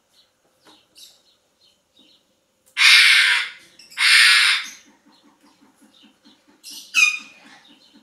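Parrots squawking: two loud, harsh screeches back to back a few seconds in, then a shorter call ending in a falling whistle near the end. Faint chirps and a steady soft ticking, about four or five a second, run underneath.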